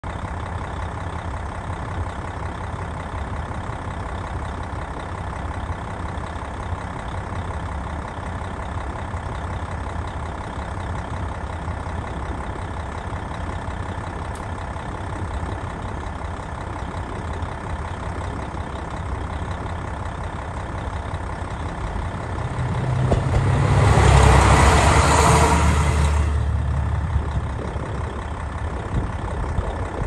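KiHa 54 diesel railcar passing through without stopping: its engine and wheels on the rails swell into a loud rush about three-quarters of the way through, then fade quickly as it goes by. A steady low rumble runs underneath.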